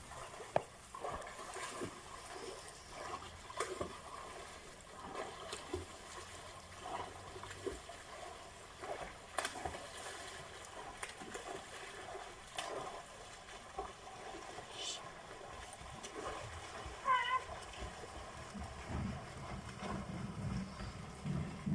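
Faint, irregular water splashing from people swimming across a river, with a short high call about two-thirds of the way through.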